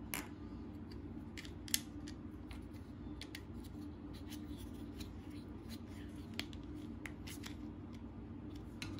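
Faint, scattered clicks and small scrapes of hard plastic: a plastic toy screw being turned with a plastic screwdriver tool to fasten a toy dinosaur's head to its jaw.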